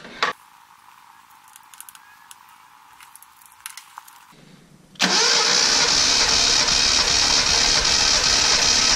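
Datsun L-series engine cranking on its starter motor with the spark plugs out, a compression gauge fitted to one cylinder, a steady cranking sound that starts about five seconds in and runs about four seconds. Before it, a few small clicks of the gauge hose being fitted.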